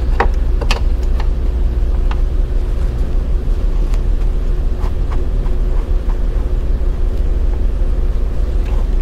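A steady low rumble with a faint steady hum, from an unseen source. Over it, a few light metal clicks come from a 17 mm wrench snugging the high-pressure fuel line nut onto the pump's brass fitting, mostly in the first few seconds.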